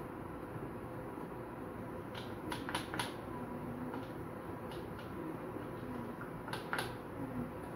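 Wooden spatula and frying pan handled at a gas stove: a few sharp clicks and taps in two short clusters, over a steady fan-like hum.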